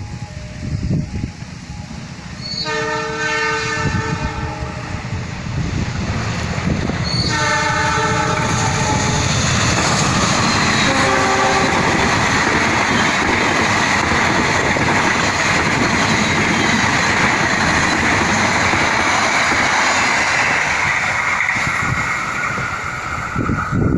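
Diesel locomotive of the Argo Bromo Anggrek express giving two multi-tone horn blasts, about two seconds long and a couple of seconds apart, then the train passing through the station at speed with a loud rush and wheel clatter for about fifteen seconds before it fades near the end.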